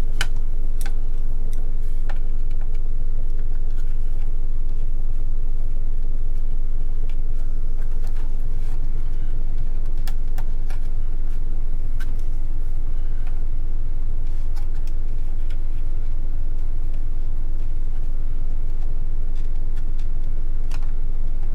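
A steady, loud machine hum from a running motor, with a few light clicks scattered through it.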